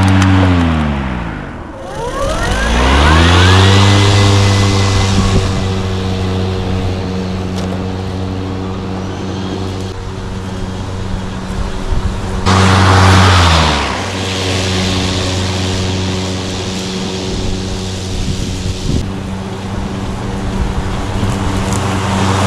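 Ego Select Cut XP 56-volt battery lawn mower running with its blades engaged, cutting grass: a steady electric motor and blade hum that dips in pitch and climbs back up a few times. A high whine rises about three seconds in.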